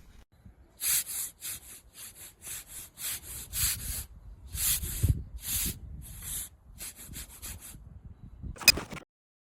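Dog gnawing on a natural-rubber ball toy: rhythmic raspy scraping strokes, about three a second with short pauses, and a sharp click near the end.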